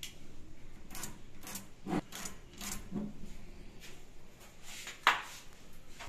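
A pen making short scratching strokes on the wooden edge of a door, marking out the lock position against a metal try square. The strokes come every half-second to second, with one sharp knock about five seconds in.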